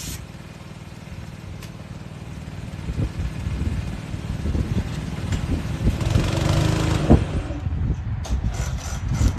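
A gas-powered air compressor's engine running, with an uneven low rumble that grows louder partway through. There are a few knocks along with it, and a quick run of short clicks near the end.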